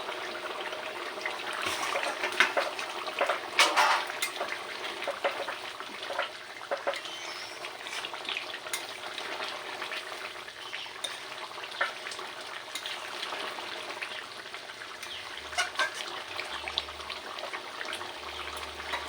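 Chicken curry gravy bubbling steadily in an uncovered pot, with occasional sharp clinks.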